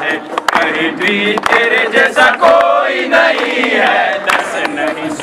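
A group of men singing a song together in chorus, with hand claps scattered through it.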